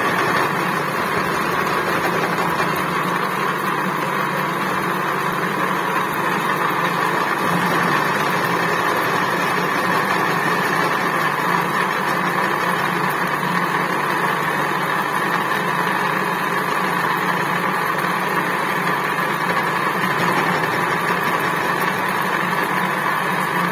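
Vertical milling machine running steadily, its end mill cutting a groove in a metal workpiece as the table is fed: a constant machine hum with a higher steady whine over it.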